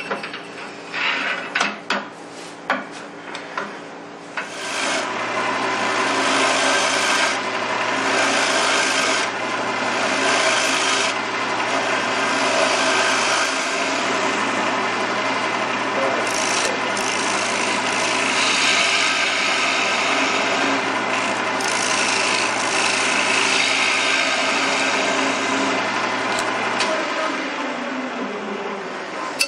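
A bowl gouge cutting the inside of a wooden bowl spinning on a wood lathe: a loud, continuous shearing hiss that swells and eases with each sweep of the tool, running from about five seconds in and fading near the end. Before that come a few short scrapes and clicks.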